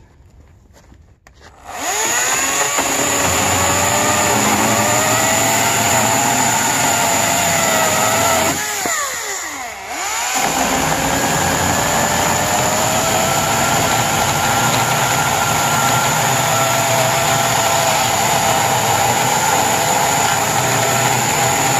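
EGO 14-inch battery-powered chainsaw, on a fully charged 5 Ah battery, starting about two seconds in and cutting through a wooden block, its motor whine wavering under load. Around nine seconds in the chain winds down with a falling pitch, then spins back up and runs steadily through the cut.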